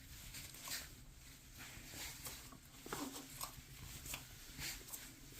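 Faint, scattered clicks and rubbing as a tubeless scooter tire is worked by hand to break its bead from the rim.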